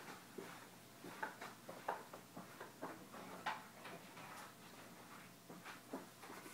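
Faint, scattered knocks and clicks of someone walking and handling an acoustic guitar: footsteps, the guitar lifted off its stand, and light bumps against its body and strings as he sits down with it.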